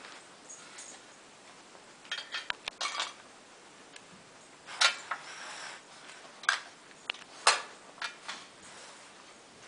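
A metal muffin tin clinking and rattling as a dog noses tennis balls out of its cups to find treats: irregular knocks, a cluster about two seconds in and single sharper ones later.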